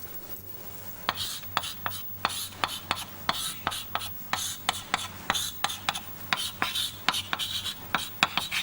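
Quick back-and-forth scratching strokes of hand drawing on a writing surface, several a second, each ending in a sharp tick, starting about a second in: shading in the implanted region of a diagram.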